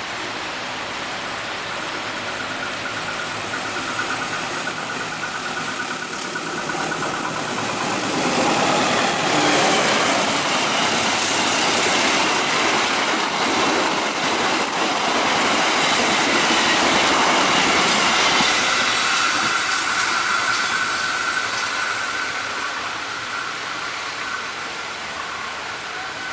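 A train passing along the line: the rail and wheel noise builds over several seconds, stays loudest for about ten seconds in the middle, then fades away.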